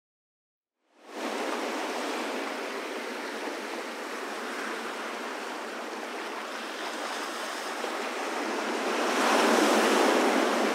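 Ocean surf washing in a steady rush of noise, fading in about a second in and swelling louder near the end.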